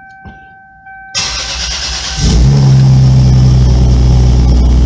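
A faint steady tone, then about a second in the starter cranks the 1996 Toyota Supra's built, single-turbo inline-six. About two seconds in the engine fires and settles into a steady, loud idle: the no-start fault is cured.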